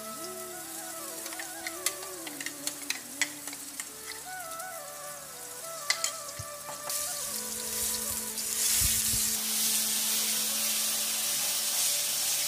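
Spice paste frying in hot oil in a nonstick frying pan, with scattered sharp pops of spitting oil. About seven seconds in the sizzle turns much louder and steady, and the mixture is stirred with a wooden spatula.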